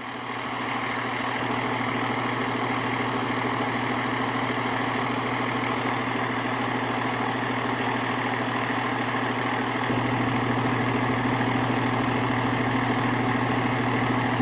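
Fire truck engine idling steadily, growing slightly louder about ten seconds in.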